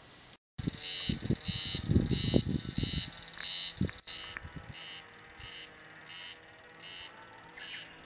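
Cicadas calling in a pulsed buzz, about three pulses every two seconds. Low thumps from footsteps and camera handling come in the first three seconds.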